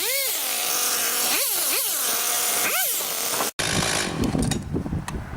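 Husqvarna 359 two-stroke chainsaw revving up and falling back about four times. About three and a half seconds in it cuts off abruptly, giving way to wind buffeting the microphone.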